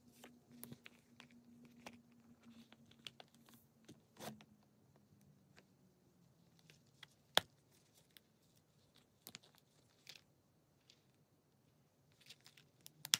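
Small coated-canvas and leather card case handled by hand: soft rubbing and rustling with light taps and clicks of its metal hardware, and two sharper clicks, one about seven seconds in and one at the very end.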